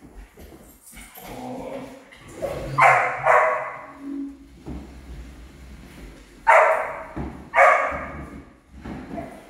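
A dog barking: four sharp barks in two pairs, the second pair a few seconds after the first.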